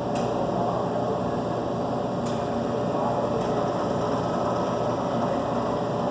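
Steady machine hum with three faint sharp clicks.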